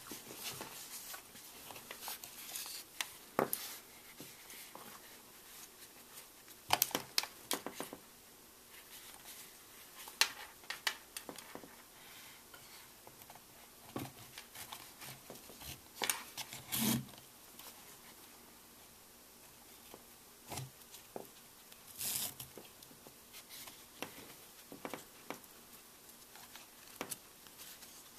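Camera-strap webbing being handled and pulled through its slide lock: scattered clicks and light rubbing, with several brief swishes of webbing sliding.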